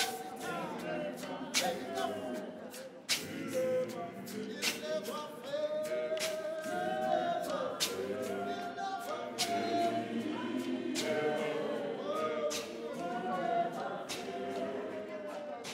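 Zionist church choir singing a hymn unaccompanied, many voices in harmony, with a sharp percussive beat about every second and a half.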